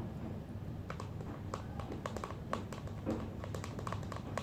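Shaving-foam slime being mixed, giving many small irregular sticky clicks.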